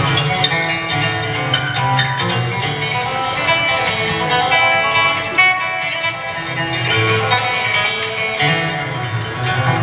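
Acoustic string band playing a fast instrumental folk tune live: mandolin, fiddle, banjo and guitar over a plucked bass line, with dense, quick picked notes.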